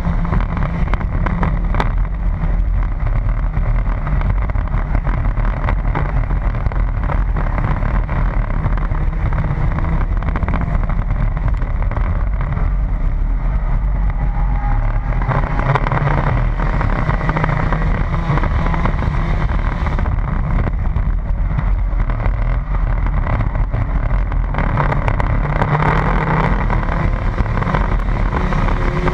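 Enduro stock car's engine running hard under race load, heard from inside the cabin with heavy wind and road noise. The engine note swells twice along the way.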